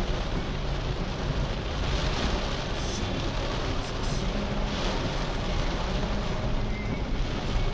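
A car driving in heavy rain, heard from a dashcam: a steady rushing noise of rain, tyres on the wet road and the engine.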